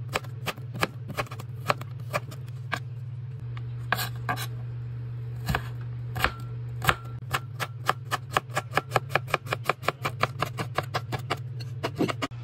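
Kitchen knife chopping a carrot on a cutting board: sharp, irregular knocks at first as it is sliced into strips, then a quick steady run of about five chops a second as it is diced.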